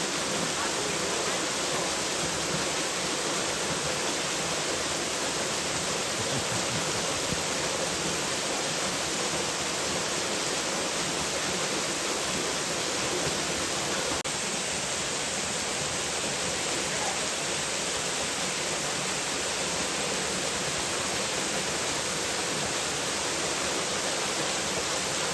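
Waterfall: a steady, even rush of falling water, its tone shifting slightly about halfway through.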